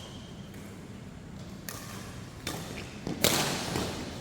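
Badminton rackets hitting the shuttlecock during a rally, a few faint hits and then sharp, louder strikes, the loudest about three seconds in, ringing in a large hall.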